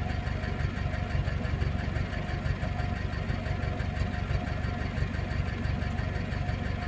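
VAZ-2101 (Kopeyka) engine idling steadily while still warming up, not yet at running temperature. A light, even clatter runs through the idle, which the owner puts down to a worn used camshaft that needs replacing.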